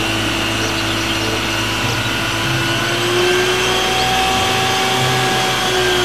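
Isuzu water tanker truck with its pump driving the roof water cannon: a steady, loud rushing noise with a constant whine over a low hum. The whine dips slightly near the end.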